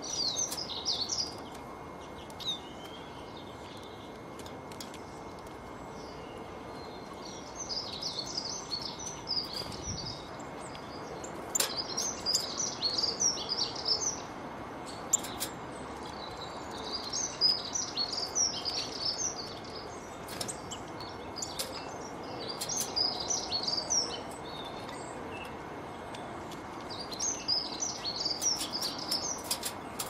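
Small songbirds chirping in about seven short bouts of quick high notes, each a second or two long, over steady outdoor background hiss, with scattered sharp clicks.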